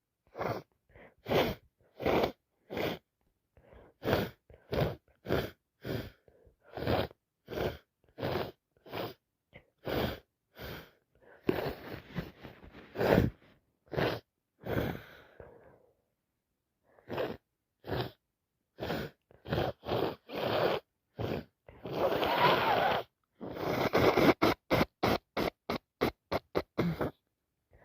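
A woman's long allergic sneezing fit: dozens of short sneezes in quick succession, mostly one or two a second, broken by a couple of longer breathy stretches. Near the end the bursts come faster, about four a second.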